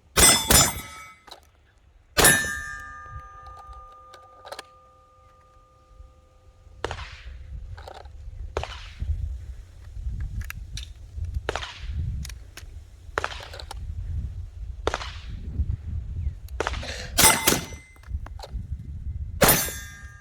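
Handgun shots on steel targets: two quick shots at the start and a third about two seconds in, the steel plate ringing for several seconds after it. A string of fainter shots follows, then more loud shots with ringing steel near the end.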